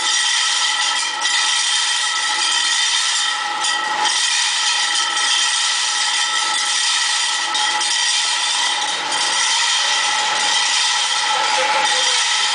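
Plastic friction washer running at speed: its rotor gives a steady whine of several held tones over a dense, even mechanical rushing.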